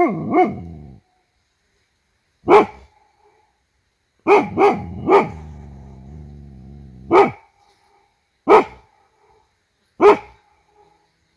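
Dog barking in short, sharp single barks with a quick run of three in the middle, about seven in all, each followed by a faint echo. The dog seems to be barking at her own echo, which the owner thinks she takes for another dog.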